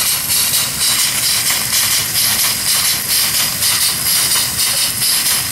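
Live steam locomotive's small Worthington steam water pump running, its steam exhaust hissing with an even, rhythmic pulsing as it pumps feedwater into the boiler.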